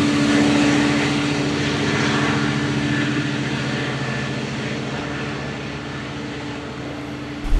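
Rear DM30AC diesel locomotive of an LIRR train running with a steady engine drone over wheel and rail noise as the train pulls away, slowly fading. Near the end it cuts off abruptly to wind buffeting the microphone.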